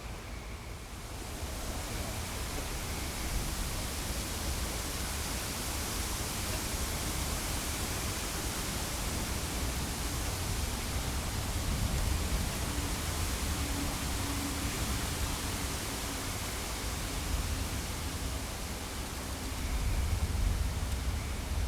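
Thunderstorm's steady rushing noise, swelling about a second in and then holding, with a low rumble underneath.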